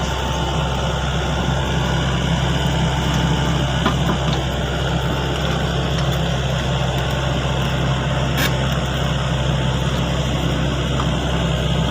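Sany excavator's diesel engine running at a steady, even speed, a constant low drone with a couple of faint clicks.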